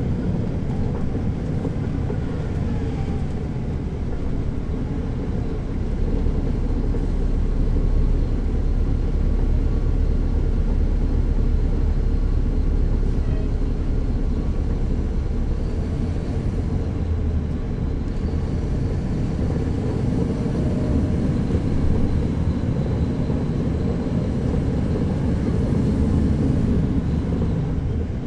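A NABI transit bus's Caterpillar C13 ACERT inline-six diesel engine running steadily, heard from the rear seats inside the bus, a continuous low drone. Its note shifts a little in pitch in the second half.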